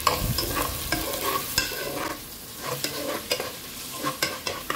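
Garlic, onion and ginger sizzling in hot oil in a pot while a metal spoon stirs them, clicking and scraping against the pan many times.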